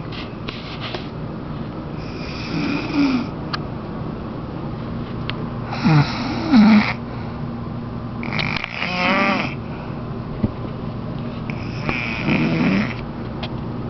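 An elderly woman snoring really loud: four snores about three seconds apart, the loudest a little before halfway. The third snore has a fluttering, wavering pitch.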